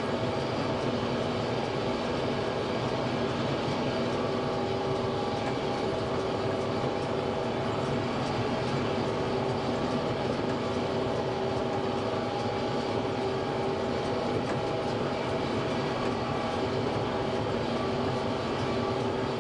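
Kubota M5-091 tractor engine running steadily under load while pulling a Kubota BV4160E round baler through the hay.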